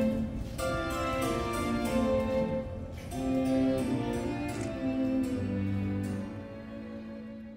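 Instrumental music with held melodic notes over a steady beat, fading out near the end.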